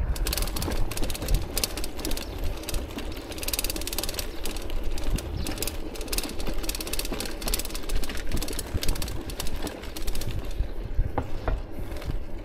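Bicycle rattling hard over cobblestones, a fast jittery clatter of tyres and frame. It eases near the end as the paving turns smooth.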